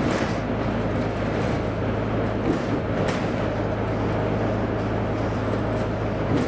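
Volvo B9TL bus's rear-mounted six-cylinder diesel running steadily at cruising speed, heard from inside the lower deck together with road and tyre noise. There are a couple of light clicks, one at the start and one about three seconds in.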